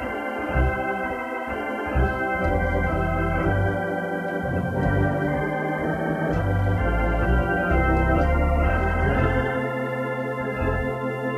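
Organ music: held chords over a bass line that changes notes every second or so.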